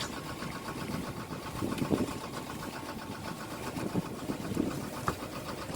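A sailboat's inboard engine running steadily, with an even, rapid rhythmic beat.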